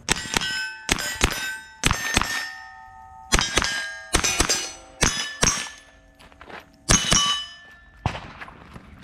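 A string of semi-automatic shots from an AR-style carbine, each followed by the clang of a hit steel plate ringing on. The shots come mostly in quick pairs about a second apart, with a short pause about two-thirds of the way through.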